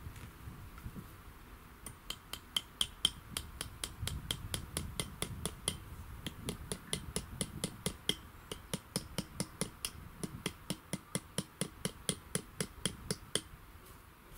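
Rapid, even clicking, about four to five sharp clicks a second, starting about two seconds in and stopping shortly before the end, over a low wind rumble.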